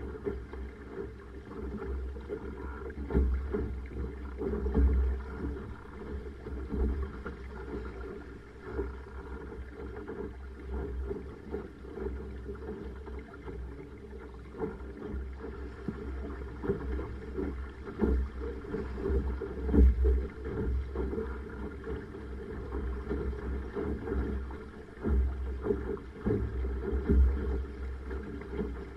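Water rushing and slapping along a Laser dinghy's hull as it sails through chop, with gusty wind rumbling on the microphone and frequent small knocks from the waves. The sound is dull and low, with little high end.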